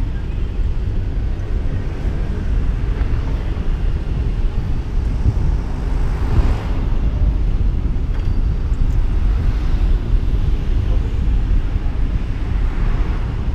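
Car driving slowly along a town street: a steady low rumble of road noise and wind buffeting the microphone. An oncoming car passes by about halfway through, with a few fainter passing swooshes at other moments.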